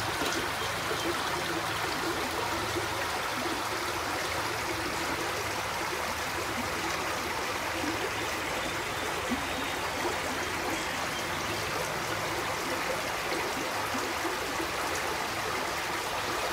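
Shallow creek water running over many small rocky riffles, the 'tiny waterfalls', making a steady, even water noise.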